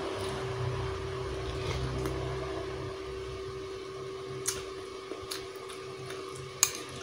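A metal spoon clinks against a ceramic soup bowl twice, about four and a half and six and a half seconds in, over a steady low hum in the room.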